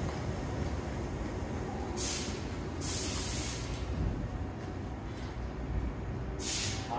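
Tobu 8000 series electric train standing at a platform with a steady low rumble, while compressed air hisses out in short bursts: one about two seconds in, a longer one lasting about a second just after it, and another near the end.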